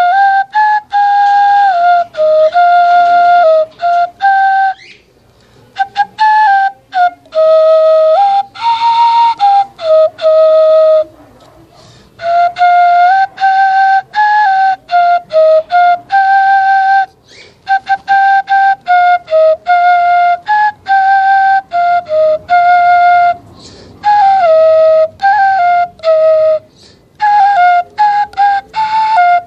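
Homemade bamboo native-style flute playing a slow melody, stepping between notes in phrases broken by short pauses.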